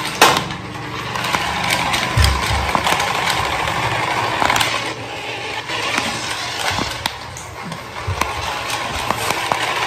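Small battery-powered remote-control toy car driving across a hard tiled floor: its motor whirring and plastic wheels rolling, with scattered clicks and knocks, the sharpest just after the start.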